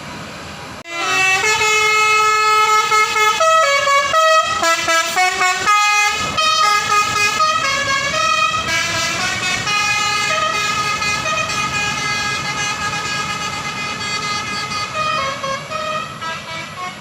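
A bus's telolet basuri musical air horn playing a melody of stepped, held notes, starting about a second in, with a run of quick short notes between about four and six seconds in.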